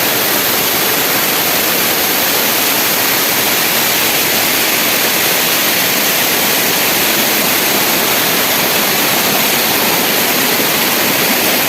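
Small waterfall and its stream rushing close by: a steady, even roar of falling water.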